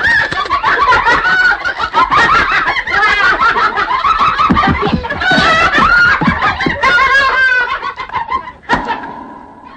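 A din of many overlapping, wavering, squeaky vocal calls from cartoon characters, like a rowdy crowd chattering and cackling at once. It dies down near the end, broken by one sharp knock, leaving a faint steady tone.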